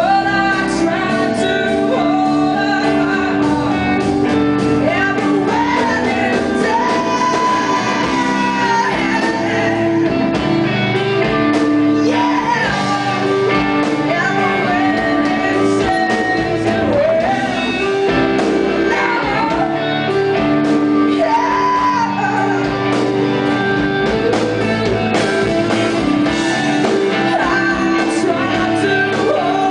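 Live rock band playing: a woman singing a held, wavering melody over electric guitars and a drum kit.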